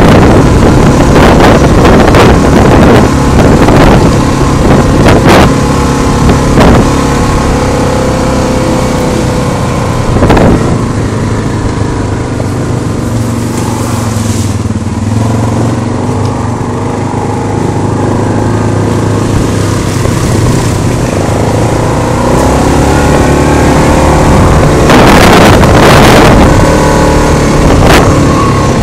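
Yamaha Grizzly 660 quad's single-cylinder engine running under throttle on a rough dirt trail, with knocks from the bumps. The engine eases off about halfway through and picks up again towards the end.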